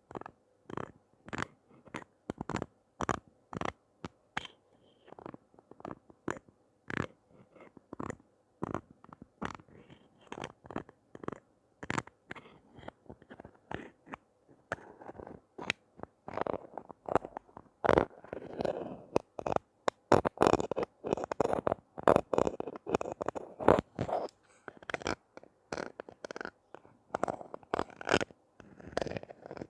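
Close-up handling of toys and packaging: a steady run of sharp clicks, taps and short crinkly scrapes, busier and louder in the second half.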